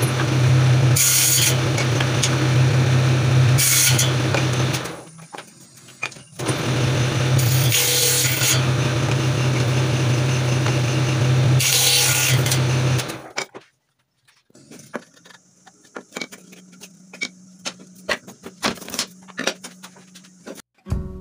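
Table saw with a sliding crosscut sled running in two spells, with short, harsher bursts as the blade cuts through thin strips of wood. The saw stops about 13 seconds in; after that there are only light clicks and knocks of wood being handled.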